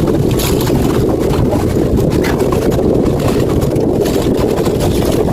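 A leisure boat's motor running steadily while the boat is underway.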